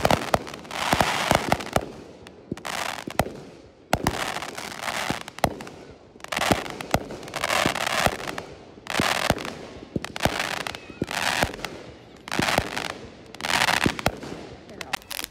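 Aerial fireworks going off in quick succession: sharp bangs, and bursts of crackle every second or so that die away between shots.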